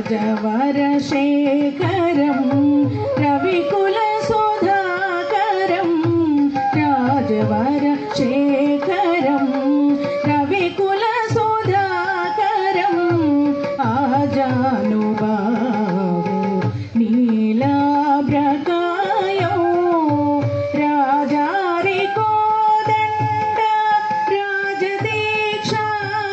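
A woman singing a melodic Carnatic-style song into a microphone, amplified over a PA, with long held notes that bend and waver, over light percussion accompaniment.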